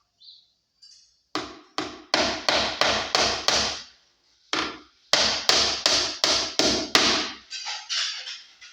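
Hammer driving a small nail into the wooden subwoofer box: two runs of sharp strikes, about three a second, with a short pause between them and a few lighter taps near the end.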